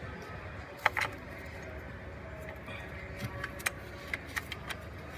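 Scattered metallic clicks and taps of a socket wrench turning a valve cover bolt, two sharper clicks about a second in and lighter ones a little later, over a steady low hum.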